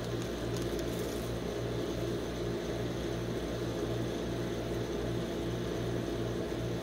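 Steady low hum of a rolled-ice-cream cold plate's refrigeration compressor running.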